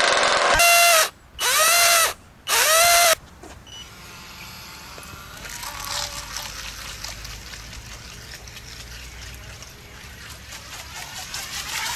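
27cc two-stroke model-boat engine running loudly, then blipped three times in quick succession, each blip rising in pitch. After about three seconds it gives way to a much quieter, faint hum and outdoor background as a small model boat runs on a pool.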